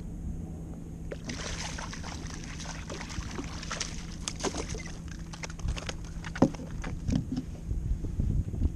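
Hooked porgy (scup) thrashing at the surface beside a kayak, its splashing starting about a second in with many small sharp splashes. A sharp knock about six and a half seconds in, then a few more knocks as the fish is handled.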